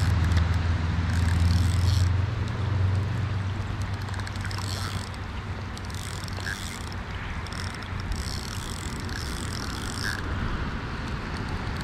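Rain falling on a river's surface over the flowing water, with a low steady rumble through the first few seconds that then fades.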